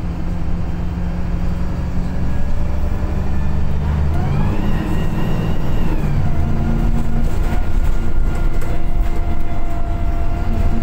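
VDL SB200 bus engine and driveline under way, heard from inside the saloon: a steady low drone with a whine that rises about four seconds in as the bus picks up speed, then holds steady.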